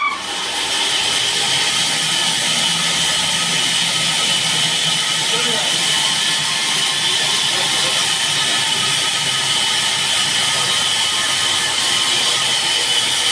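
Electric-motor-driven sawmill saw running at full speed with no cut, a loud steady whirring hiss with a high whine, just after being switched on.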